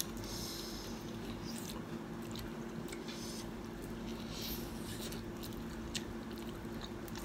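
Faint biting and chewing of sauce-coated fried chicken drumsticks: soft wet mouth sounds and scattered small clicks, over a steady low hum.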